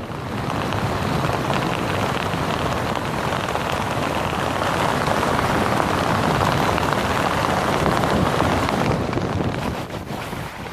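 Wind rushing over the microphone as a parachute canopy flies its final approach to landing. The rush eases off about nine seconds in as the canopy slows for touchdown.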